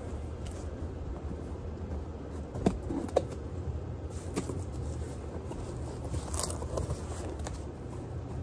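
Steady low hum with light handling noises from objects being moved about: two sharp clicks about three seconds in and a brief rustle a little past six seconds.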